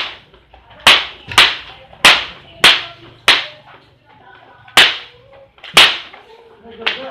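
Hinged jaw of a barongan lion-dance mask snapping shut: about nine sharp clacks at an uneven pace, some half a second apart, with longer gaps between others.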